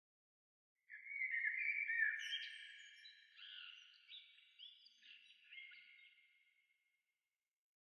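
A short phrase of high, overlapping pitched tones, several held notes that slide up at their starts. It begins about a second in and fades away over about six seconds, over otherwise dead-silent audio.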